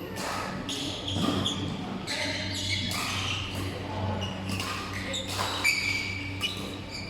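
Indoor basketball game: the ball bouncing on the court, sneakers shuffling and squeaking, and players' voices, in a large echoing hall over a steady low hum.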